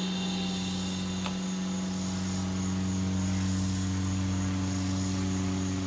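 Bass boat's motor running steadily with an even, unchanging hum.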